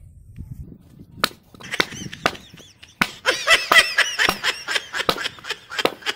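Axe chopping wood: a sharp strike about a second in and a couple more after it. From about halfway, a rapid run of knocks comes with a high, wavering pitched sound over it.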